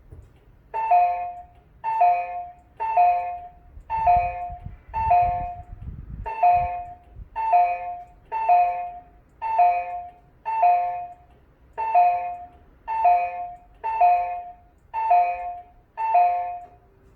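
Exterior left-turn warning chime from a Neptune bus voice-synthesis announcement unit made by Resonant Systems, the type used on city buses. The same chime strikes about once a second, fifteen times, each ding fading quickly.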